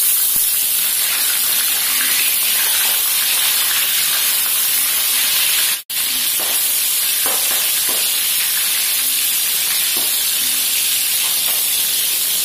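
Shallots, garlic and bird's eye chillies frying in hot oil in a wok: a loud, steady sizzle with a few small pops, cutting out for an instant about six seconds in.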